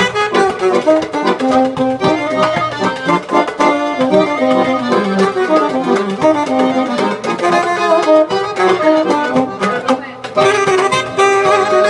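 Saxophone and accordion playing a melody over a hand-played goblet drum (darbuka) beat.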